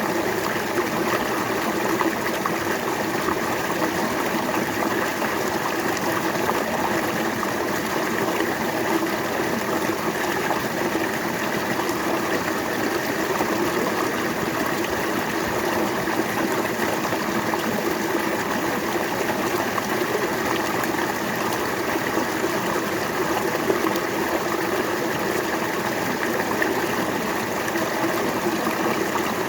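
River water flowing steadily over rocks, an even rushing and babbling with no change.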